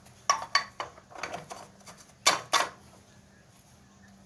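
Steel pins clinking and clattering as they are handled and set down: a quick series of sharp metal clinks in the first three seconds, the loudest pair a little past two seconds in.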